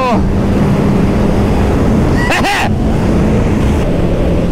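Suzuki GSX-R1000 inline-four engine running at steady high revs at motorway speed, under heavy wind rush on the microphone. A brief wavering tone rises and falls about two seconds in.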